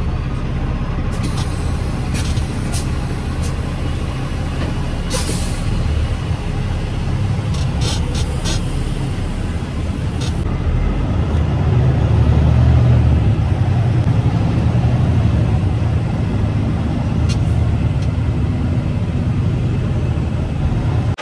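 Semi truck's diesel engine and road noise heard inside the cab while driving: a steady low rumble that grows louder about halfway through, with a few scattered clicks and rattles.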